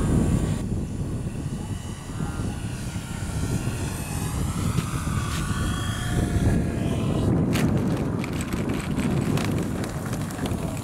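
Electric motor and propeller of a foam radio-controlled Fw 190 model warbird whining as it passes low, the pitch shifting as it goes by. From about seven seconds in there is a run of clicks and knocks as it touches down and rolls on a rough dirt strip, over a steady low rumble of wind on the microphone.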